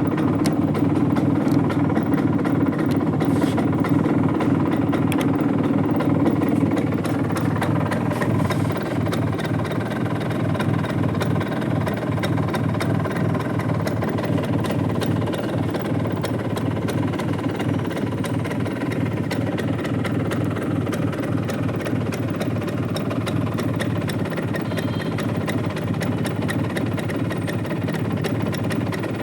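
Bajaj Chetak scooter engine running steadily at idle, a little louder for the first six seconds or so and then settling slightly lower.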